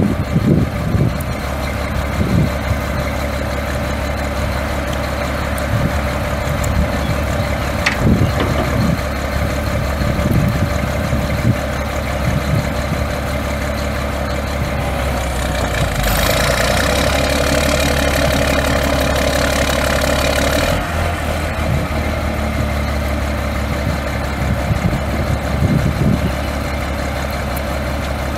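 Caterpillar 3126 inline-six turbo diesel in a Freightliner FL80 truck idling steadily. A loud hiss joins in for about five seconds around the middle and then cuts off.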